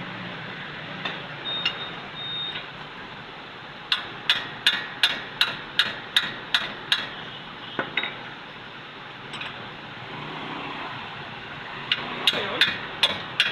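Hammer blows, most likely on metal during a front wheel bearing replacement: a quick run of about ten sharp strikes at roughly three a second, then a pause, then another run of five or six strikes near the end.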